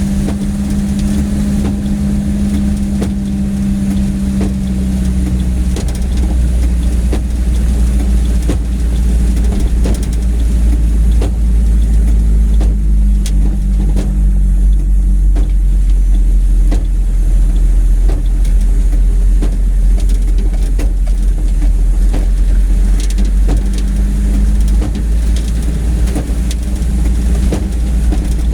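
Road vehicle's engine running with a deep steady rumble and a low hum, getting louder about six seconds in, with scattered sharp taps throughout.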